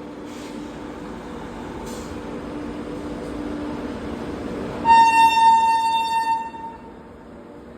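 WAP-7 electric locomotive passing, its train noise building, then sounding its horn in one loud, high, single-tone blast of just under two seconds about five seconds in.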